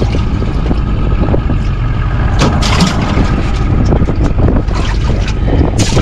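Wind buffeting the microphone in a loud, steady low rumble, with two brief noisy bursts about two and a half seconds in and near the end.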